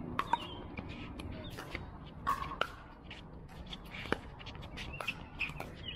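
Pickleball paddles hitting a plastic pickleball back and forth in a doubles rally: a series of sharp pops at irregular intervals, some louder than others.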